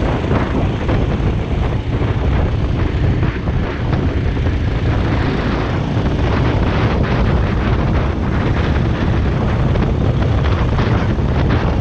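Go-kart engine running hard at racing speed with wind buffeting the onboard microphone, a steady loud noise throughout.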